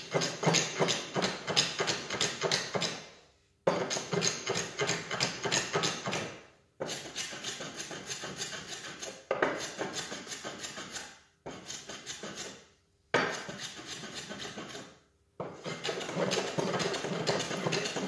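Japanese hand plane (kanna) working along a board's edge to cut a chamfer, in quick short strokes. It makes a fast rhythmic rasping of several strokes a second, in runs of two to four seconds with short pauses between.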